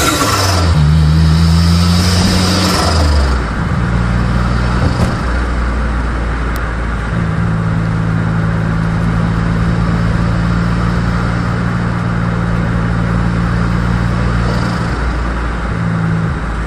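Daihatsu L7's small turbocharged engine pulling through the gears: a loud hissing rush of turbo flutter as the revs drop at gear changes right at the start and again a few seconds in. Then a steady engine note while cruising, with another change in engine speed near the end.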